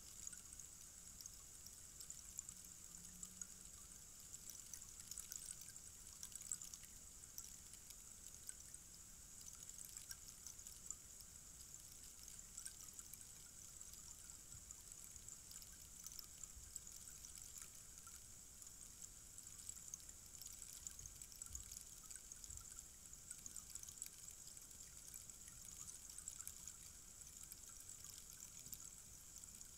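A tall rainstick with its fill trickling steadily down through the tube: a faint, even patter of fine grains that sounds like light rain or pouring water.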